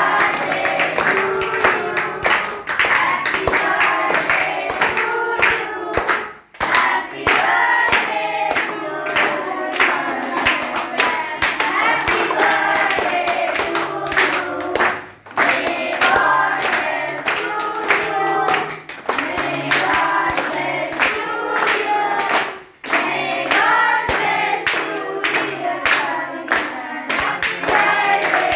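A group of children singing a birthday song together in unison while clapping along in time, with short breaks between lines.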